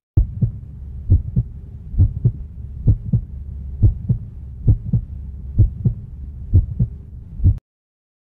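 Heartbeat sound effect: paired low lub-dub thumps about once a second over a steady low hum, starting abruptly and cutting off shortly before the end.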